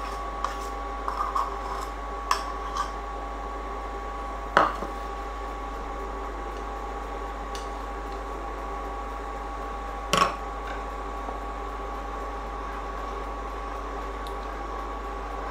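A metal spoon and a silicone spatula knocking and scraping against a stainless steel pot as peanut butter is scraped in and stirred into a thick stew: a few light clicks in the first three seconds, and two sharper knocks about four and a half and ten seconds in. A steady whining hum runs underneath.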